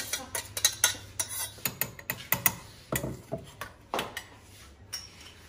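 Stainless-steel mixer-grinder jar and lid clinking and knocking as they are handled and fitted onto the grinder base: a run of irregular metal clicks and clatters that dies down near the end. The grinder motor is not running.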